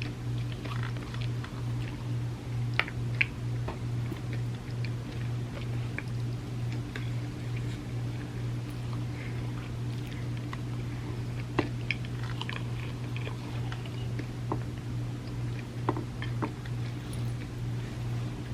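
Close-up eating sounds: biting and chewing soft-baked cookie cups layered with chocolate wafers, with scattered sharp crunches and wet mouth clicks, the loudest about three seconds in, near the middle and near the end. A steady low hum runs underneath.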